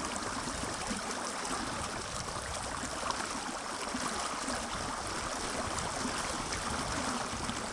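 Fast-flowing mountain river rushing: a steady, even noise of running water.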